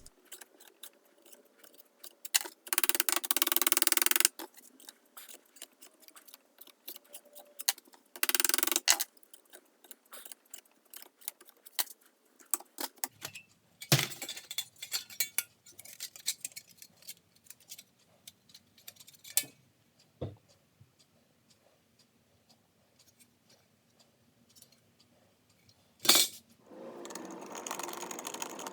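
Hand tools working a small piece of sheet metal: scattered metallic clinks and clatter, with two louder noisy stretches of a second or so in the first ten seconds and a sharp knock near the end.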